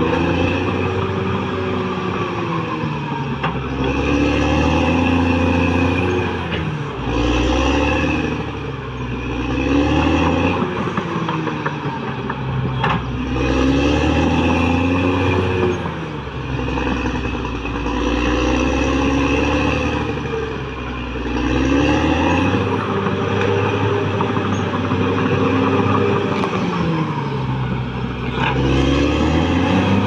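Caterpillar D6R XL crawler bulldozer's diesel engine running under load. Its note rises and falls every few seconds as the machine works the ground, with a few short knocks.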